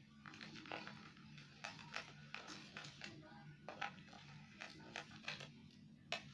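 Faint background music with a few irregular soft clicks and squishes, typical of stirring sticky slime mix.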